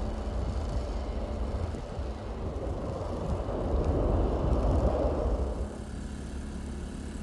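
A vehicle passing on the road, its noise swelling to a peak about five seconds in and then fading quickly, over a steady low rumble.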